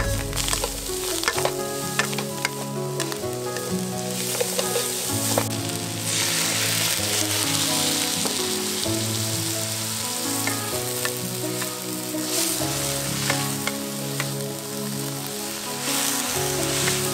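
Shredded jicama and carrot sizzling in a hot nonstick wok while a spatula stirs and scrapes them. The hiss grows louder for a few seconds about six seconds in, as a little water goes into the pan. A soft background melody plays throughout.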